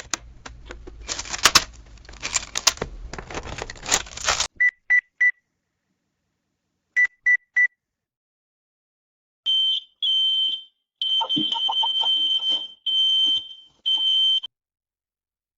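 A dense clatter of many quick clicks for about four and a half seconds. Then two sets of three short, high electronic beeps. Then five longer, higher beeps like an alarm.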